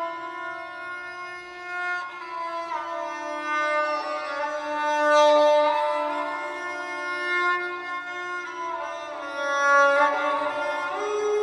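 Esraj, the Indian bowed string instrument, played with a bow: a melody of sustained notes that slide from pitch to pitch over a steady held low note.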